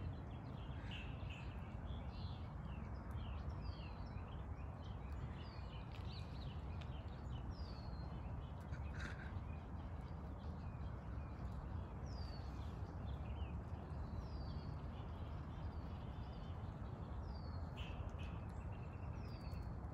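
Small songbirds chirping again and again, short high chirps that slide downward, over a steady low outdoor rumble, with a couple of brief rustles near the middle and the end.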